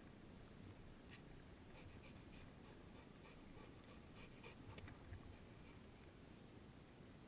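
Near silence, with faint scratchy rustles and ticks in the grass close to the microphone.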